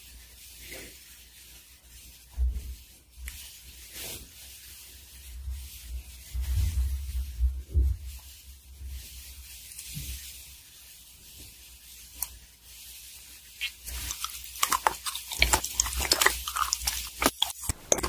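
Close-miked eating sounds of chocolate and chocolate cake: scattered bites and chewing, with soft low thuds in the middle, then dense crisp crunching for the last few seconds.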